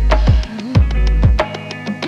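Music track with a deep bass and a steady drum beat.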